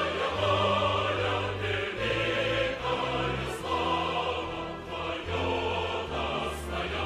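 Choral music with orchestral backing: a choir singing sustained notes that change about every second.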